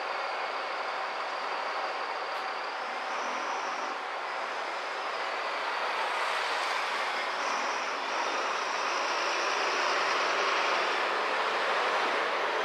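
City street traffic heard from a car creeping along in slow traffic: a steady noise of engines and tyres, with a thin high whine that shifts in pitch a few times. It grows louder in the second half as the traffic moves.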